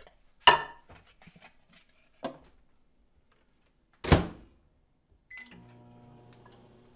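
A bowl knocks onto the turntable of an LG over-the-range microwave, a smaller knock follows, and the door shuts with a loud thump about four seconds in. A short keypad beep, then the microwave starts heating with a steady low hum.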